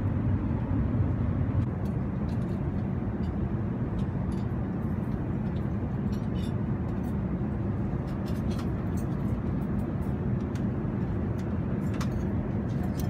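Steady low rumbling cabin noise of an Airbus A380-800 airliner in cruise flight, with a few faint light clicks over it.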